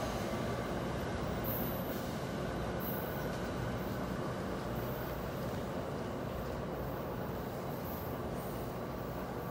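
NJ Transit commuter train rolling away from the station, a steady rumble of wheels on rails that fades slightly as the rear cab car recedes.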